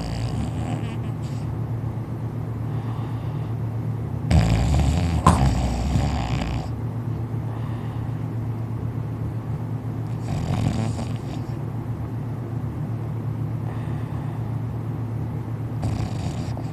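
A man snoring in deep sleep: loud snores recur every five to six seconds, the longest about four seconds in, over a steady low hum.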